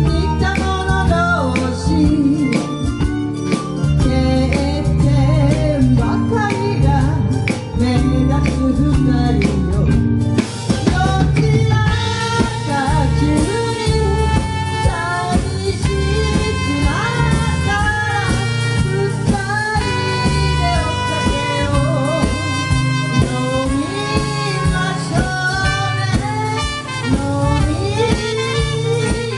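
Live band playing a Japanese pop ballad, with a lead vocalist singing over drum kit and keyboards at a steady beat; the band's sound gets fuller and brighter about ten seconds in.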